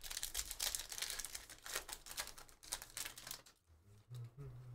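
Foil wrapper of a Panini Mosaic football card pack being torn open and crinkled by hand: a dense crackling that dies down after about three and a half seconds.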